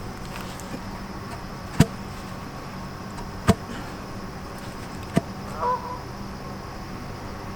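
A digging tool striking into the ground of a fence-post hole three times, about every second and a half to two seconds. A brief high chirp follows the third strike.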